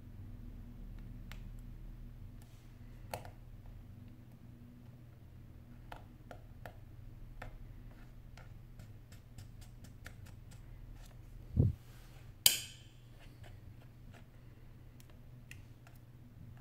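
Faint scattered clicks and taps of a precision screwdriver on the tiny screws and metal brackets inside an opened iPhone 8 Plus. About eleven and a half seconds in comes a dull knock, followed a second later by a sharp metallic clatter, the loudest sounds.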